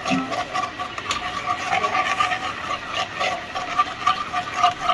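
Steady mechanical whine in two tones that pulses several times a second, with rough scraping over it.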